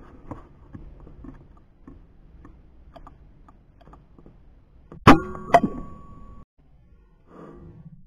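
A sharp rifle shot about five seconds in, with a metallic ring after it, and a second sharp crack about half a second later; before the shot only faint scattered ticks.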